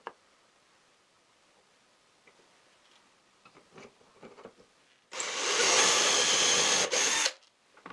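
Cordless drill boring a shallow dowel hole through a doweling jig into the face of a melamine-faced particle board, running about two seconds and stopping abruptly. It starts about five seconds in, after a few light knocks as the jig and drill bit are set in place.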